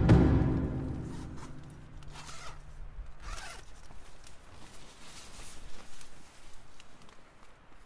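The tail of a loud music hit dies away over the first second or so, then a tent's door zipper is pulled open in a few quick strokes. One of the strokes rises in pitch.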